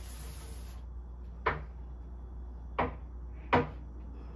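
Three short, sharp knocks at a wooden kitchen cabinet, each ringing briefly.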